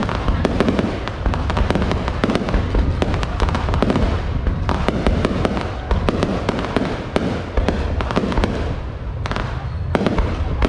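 A dense, continuous run of sharp cracks and pops, many each second, over a steady low rumble.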